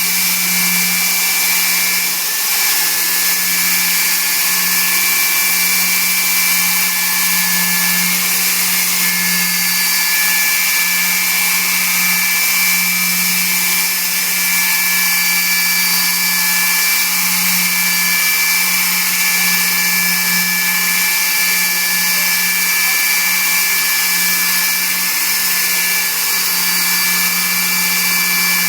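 Pentruder MDU core drill motor running steadily with a 152 mm core bit: a constant low hum under two steady high whining tones and a broad hiss.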